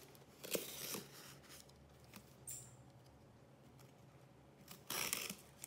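Hands handling a boxed postal parcel: two short bursts of rustling and scraping, about half a second in and again near the end.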